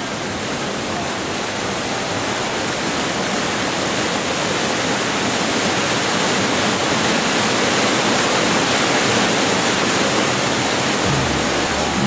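A steady rushing noise, an even hiss across all pitches with no distinct tones or clicks, slowly growing a little louder.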